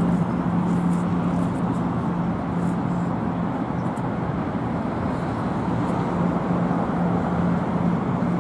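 Steady engine noise with a constant low hum that weakens briefly and returns.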